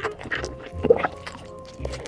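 Background music with steady held tones, over crunchy bites and chewing of fried chicken; one sharp crunch a little before halfway is the loudest sound.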